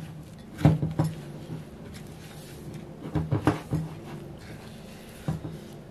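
Silicone spatula mixing crushed Oreo crumbs and condensed milk into a stiff dough in a glass bowl. It gives short dull knocks and scrapes against the bowl, in small clusters about a second in, around three and a half seconds in, and once near the end.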